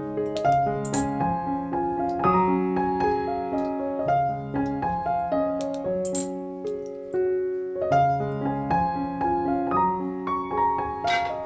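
Background piano music, a slow melody of held notes, with a few short high rattles about a second in, near the middle and near the end.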